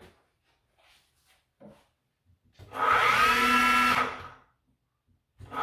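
A mini milling machine's 1 hp (750 W) servo motor, belt-driven to the spindle, started from its controller with the acceleration setting lowered to 2. It spins up quickly with a whine, runs steadily for about a second and a half, then is braked to a quick stop. A few faint clicks come before it starts.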